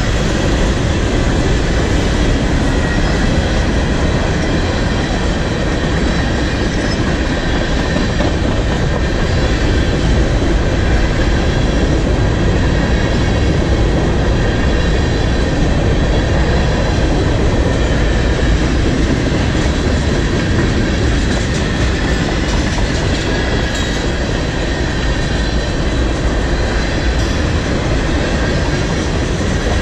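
Freight train cars, covered hoppers and tank cars, rolling past close by: a loud, steady noise of steel wheels running on the rails.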